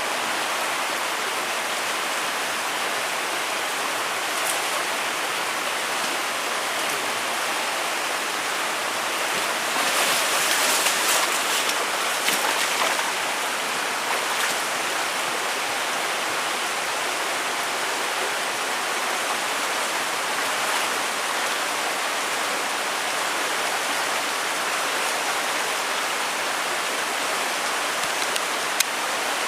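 Mountain stream running: a steady rush of water, briefly louder around ten to thirteen seconds in, with a single sharp click near the end.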